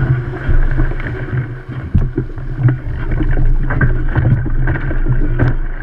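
Wind buffeting a small camera's microphone: a loud, unsteady low rumble, with a few light knocks.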